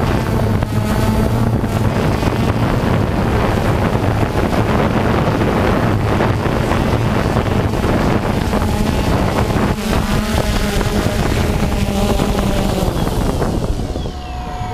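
DJI Phantom quadcopter's brushless motors and propellers running with a steady loud hum, heard from a camera on the drone itself, with prop wash buffeting the microphone. Near the end, as the drone settles on the ground, the hum fades and drops in pitch.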